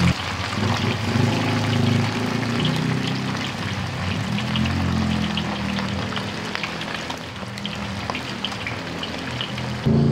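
Cornflour-coated chicken pieces deep-frying in hot oil in a wok: a dense sizzle with many small crackles and pops, over a low steady hum. It stops abruptly near the end.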